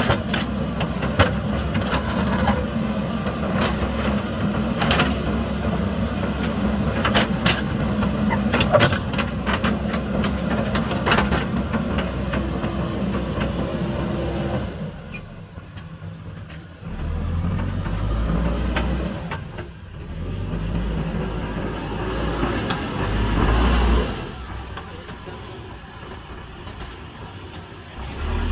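JCB backhoe loader's diesel engine working hard, with many sharp knocks and clanks of the bucket against concrete rubble. About halfway through the knocking stops and the engine drops to a deeper, lower running that rises and falls as the machine is worked.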